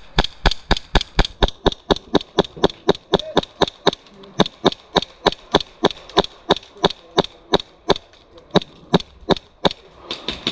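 Novritsch SSP-1 airsoft pistol firing a long run of rapid semi-automatic shots, about four sharp cracks a second, some stronger than others, with brief pauses partway through.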